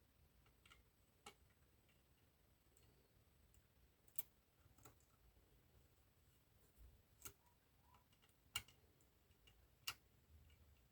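Faint, scattered metallic clicks, about five over ten seconds, as a pick works the levers inside an eight-lever lever lock.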